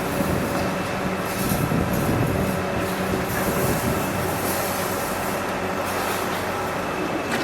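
Steady workshop machinery noise with a low electrical hum.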